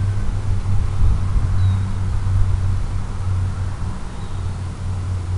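Steady low drone of a 650-size quadcopter's motors and propellers in cruise flight, with a rushing haze of noise over it.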